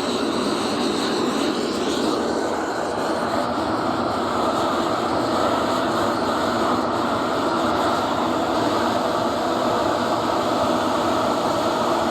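Tractor engine running steadily while the tractor is under way, a continuous even rumble.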